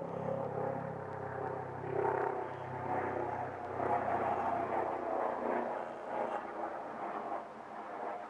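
Helicopter flying overhead, its rotor making a strange, horrible-sounding noise. The sound is a pulsing, wavering drone whose lowest part fades about five seconds in as the helicopter moves off.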